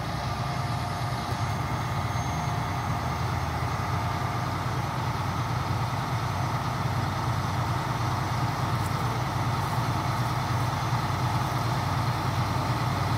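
Heavy rotator wrecker's diesel engine running steadily, with a faint steady whine above the rumble.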